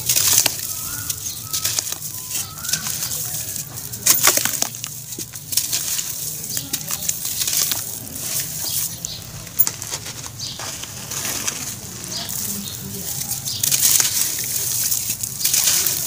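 Slabs of charcoal ash crumbled and crushed by hand in water: continuous crisp crunching and crackling with gritty wet squelching. It has a louder burst of crunches about four seconds in and again near the end.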